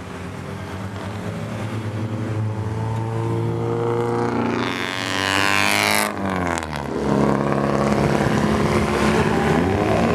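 Race cars driving past on a circuit, their engine notes climbing as they approach. About five seconds in, a red Alfa Romeo 145 race car passes close by at speed, its engine note dropping sharply in pitch, then more cars follow, accelerating.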